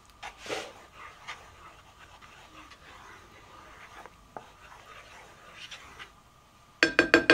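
Soft, faint stirring of a sauce in a cooking pot, then near the end a quick run of sharp, ringing clinks of a utensil against the pot, the loudest sound.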